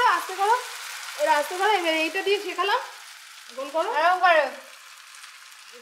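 Saru chakli batter sizzling in a nonstick frying pan, with three drawn-out high-pitched vocal sounds over it, the last one rising and then falling.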